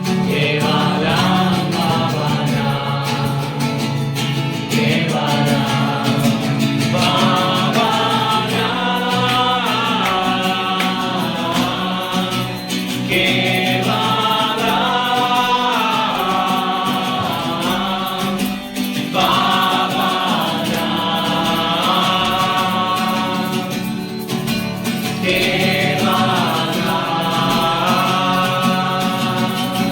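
Background music: voices singing long melodic phrases over a steady instrumental accompaniment.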